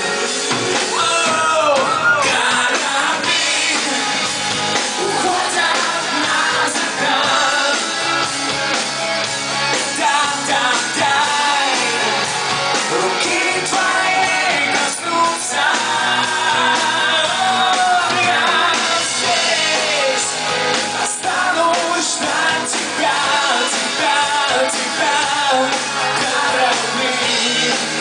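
Live rock band playing, with drums, bass guitar and keyboards, and a male voice singing over them into a microphone, recorded from the audience in a club hall.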